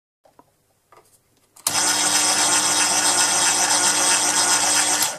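Proxxon PD 250/E mini lathe running under power, a steady motor whir with a dense high hiss, as while cutting a thread. It starts suddenly about a second and a half in and cuts off just before the end.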